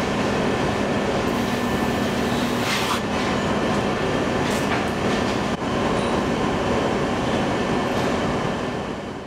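Steady machinery noise of a porcelain factory floor: a dense, even din with a faint steady hum and a few faint knocks, fading out near the end.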